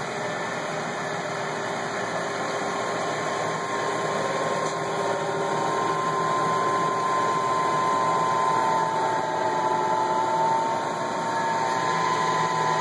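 BERCO cylindrical grinder running with its grinding wheel and workhead spindle turning: a steady machine hum with a whine that sags a little in pitch about nine seconds in.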